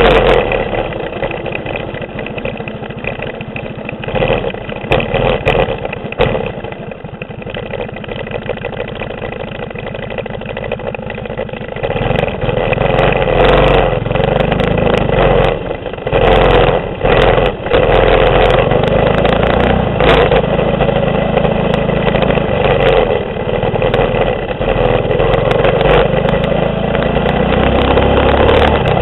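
Mini bike's 6.5 hp clone single-cylinder engine running under way on a dirt and gravel track. It eases off for several seconds, then picks up again about twelve seconds in.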